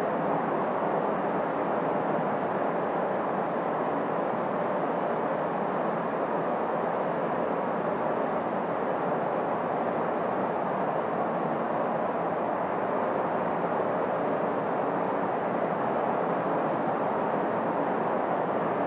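Steady, even rushing noise with no pitch or rhythm, like a wind ambience, holding level throughout.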